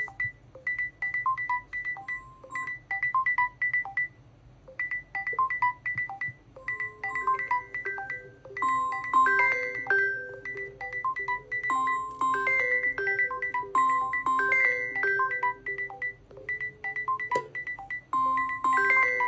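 Smartphone ring and alarm tones: short bright electronic notes repeating in a melodic pattern, with more overlapping tones joining from about six seconds in.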